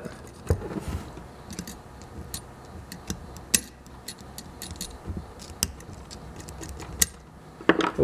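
Irregular small metallic clicks and ticks from the pivoting parts of an antique repulsion-start motor's brush-lifting mechanism as they are flicked and snapped back with a small screwdriver, the freshly lubricated parts now moving freely.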